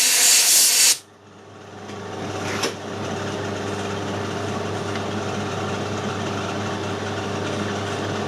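A loud hiss that cuts off sharply about a second in. Then a metal lathe's motor hum builds over a couple of seconds and runs steadily.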